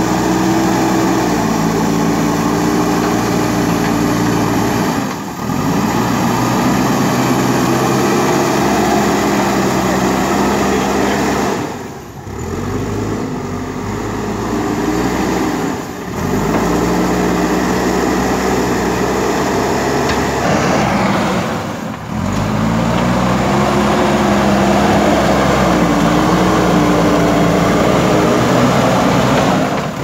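JCB 3DX Super backhoe loader's diesel engine running under load as the machine pushes and levels soil with its front loader bucket, the engine pitch rising and falling with the work. The sound dips briefly about four times.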